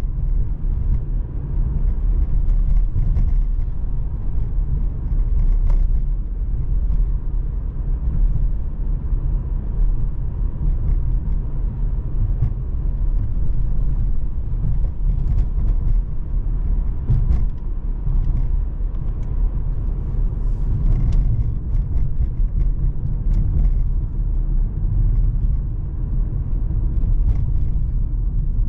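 2020 Mercedes-AMG C43's 3.0-litre twin-turbo V6 and tyres driving along at a steady pace: a constant low rumble of engine and road noise, with faint scattered ticks.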